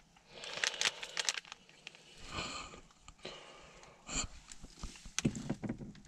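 Plastic crinkling and rustling with a sharp click and a few soft knocks, as an adhesive dash-cam mount is handled and pressed onto the inside of a car windscreen.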